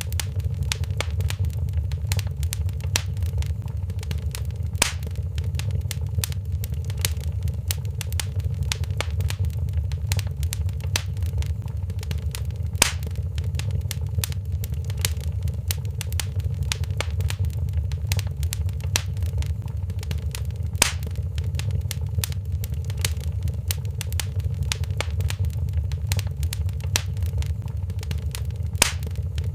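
Wood fire crackling in a stone fireplace: dense small crackles and snaps over a steady low rumble, with a louder pop about every eight seconds.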